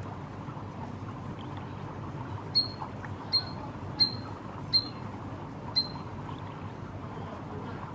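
Five short, sharp, high chirps, about one a second, from a caged white-headed munia (emprit kaji), over steady low background noise.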